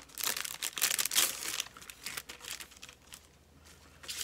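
Crinkling and rustling of clear plastic stamp sheets and packaging being handled, in several bursts over the first second and a half, then fainter, scattered rustles.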